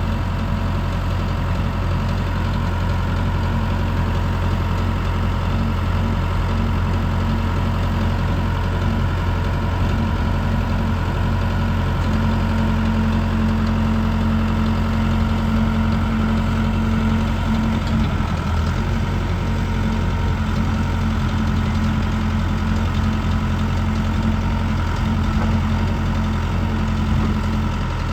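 Case 580M backhoe loader's four-cylinder diesel engine idling steadily at a constant speed.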